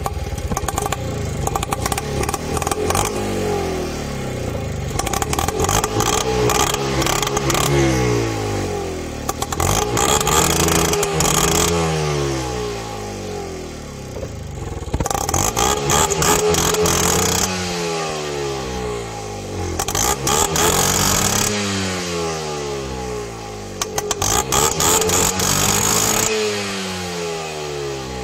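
Tuk tuk (auto-rickshaw) engine blipped again and again through its exhaust, the pitch climbing and dropping in swells every two to three seconds, raspier at several of the peaks.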